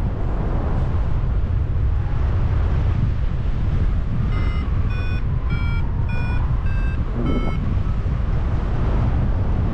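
Wind rushing over the microphone in paraglider flight. About four seconds in, a paragliding variometer beeps six short tones roughly half a second apart, their pitch wavering slightly up and down, the sound it gives when the glider is climbing.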